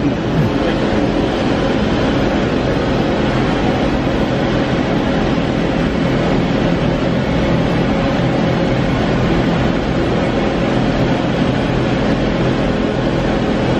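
Steady mechanical drone of running shop machinery: a constant noise with a low hum and a few steady tones, unchanging throughout.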